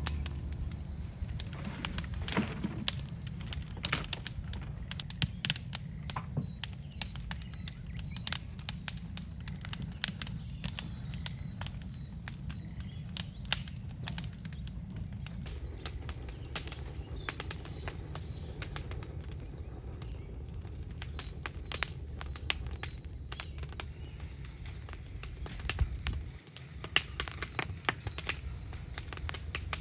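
Bonfire of garden debris crackling and popping irregularly over a steady low rush of flames, with faint bird chirps now and then.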